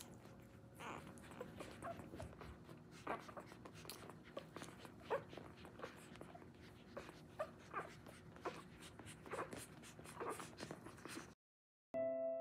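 Newborn retriever puppies nursing on their mother, making many short, faint squeaks and whimpers scattered irregularly. The sound cuts out about a second before the end.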